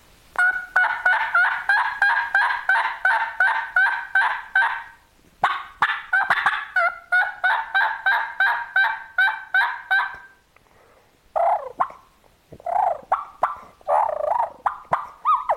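Turkey calling: two long runs of rapid, evenly paced notes, about four a second, with a short break between them. After a pause about eleven seconds in comes a slower, lower and more uneven series of notes.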